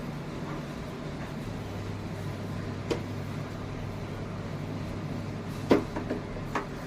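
A spatula knocking and scraping in a pan while a mashed potato dabeli filling is mixed. There are a few scattered knocks, the loudest near the end, over a steady low hum.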